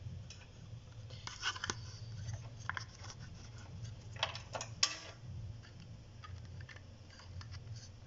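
Scattered small clicks and rattles of cables and plastic connectors being handled inside a computer case, the loudest a sharp click about five seconds in, over a low steady hum.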